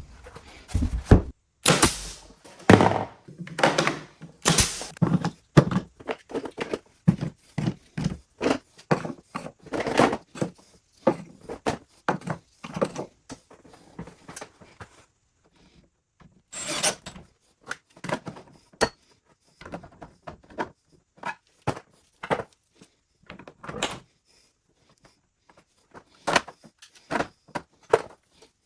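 Irregular knocks and clunks of wooden pieces being handled and set down on a workbench, some sharp, thinning out to a few scattered knocks in the second half.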